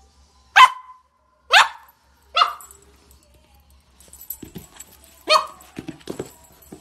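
Corgi barking: three sharp barks about a second apart, then after a pause another bark, with a few soft thumps around it.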